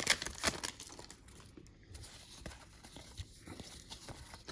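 Crinkling and tearing of a basketball-card pack wrapper being worked open by hand. It is loudest in the first second, then drops to faint rustles and small clicks.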